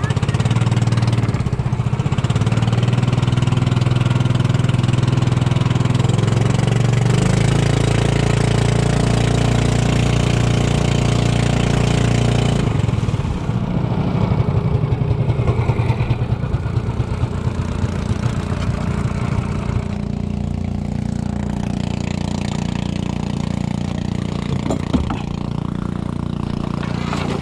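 Small engine of a motorized outrigger canoe running steadily under way, then easing off about halfway through to a slower, lower putter as the boat slows near the shore.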